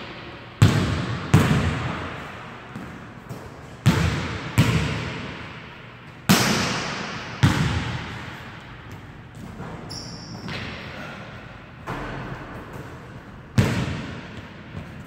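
Basketball bouncing on a hardwood gym floor: about eight sharp thuds at irregular intervals, each with a long echo fading out in the large hall.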